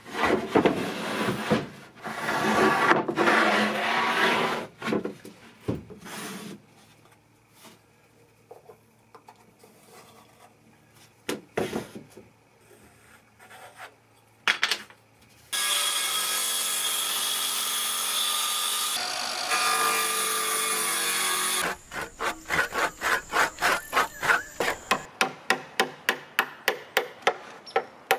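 Hand woodworking on plywood and lumber: rasping strokes of a saw or rasp on wood, about one a second, then a quiet stretch with a few knocks. Next comes a steady machine noise that starts and stops abruptly. It ends with a quick run of sharp, regular strikes, about two to three a second, as a chisel is driven into the edge of a plywood sheet.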